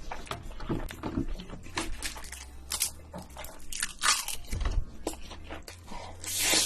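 Close-miked eating sounds: crunching, biting and wet chewing in many short crackles and smacks, with a louder noisy burst near the end.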